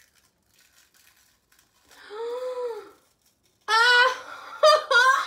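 A woman's pained wordless cries as she peels a charcoal peel-off mask from her skin. A short rising-and-falling moan comes about two seconds in, then loud, high-pitched squealing cries in the last second and a half.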